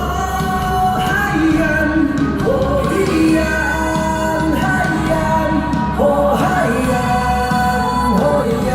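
Pop-rock song with a singing voice over a full band accompaniment.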